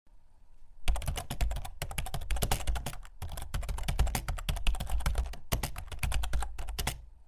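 Rapid computer keyboard typing: a dense, fast run of key clicks that starts about a second in and stops just before the end.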